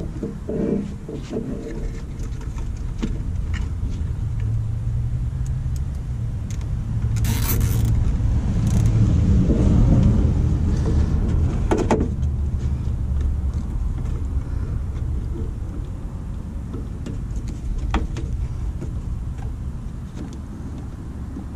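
Low rumble of a distant engine that swells to a peak about halfway through and slowly fades. Over it come scattered small clicks and a brief rasp from hands working in the engine bay.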